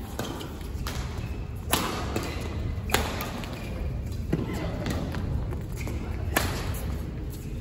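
Badminton rally: rackets striking the shuttlecock four times, sharp smacks one to two seconds apart with a short echo after each, over a steady low rumble.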